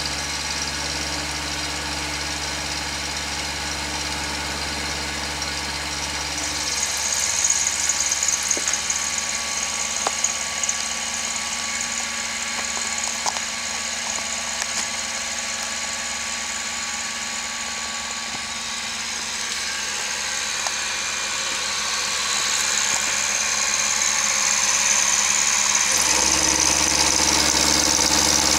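Milling machine running as its end mill cuts a spiral groove into a steel cone screw for a screw log splitter. A steady low hum gives way about six seconds in to a higher hiss with a few sharp ticks, and the hum comes back near the end.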